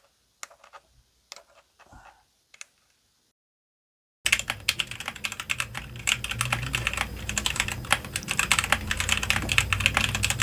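A few scattered clicks, then fast continuous typing on an E-Yooso Z11 60% mechanical keyboard with red linear switches, the keys clicking rapidly from a little past a third of the way in.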